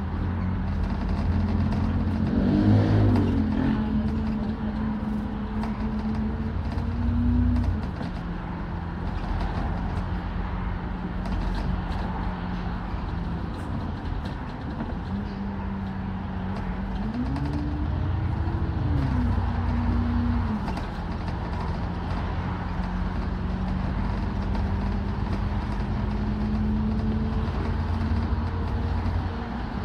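Alexander Dennis Enviro400 MMC double-decker bus heard from inside, its engine and drivetrain giving a low rumble with a steady humming tone. The pitch rises and falls as the bus speeds up and eases off in slow traffic, with a clear rising sweep about two-thirds of the way through.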